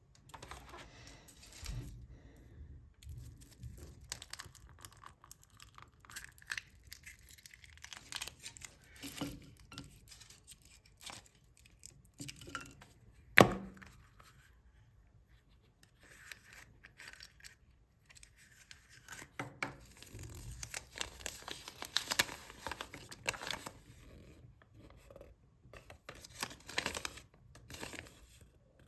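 Foil wrappers of chocolate surprise eggs being torn open and crinkled by hand, an irregular run of rustling and crackling, with one sharp click about halfway through.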